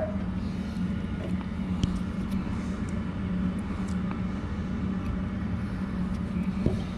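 Steady machine hum with a constant low drone and a few faint clicks.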